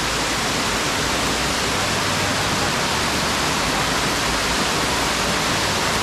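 Waterfall pouring: a steady, even rush of falling water with no change in level.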